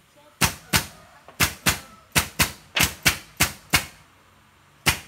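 Pneumatic nail gun firing nails into wooden pallet slats: about ten sharp cracks in quick runs, a pause, then one more shot near the end.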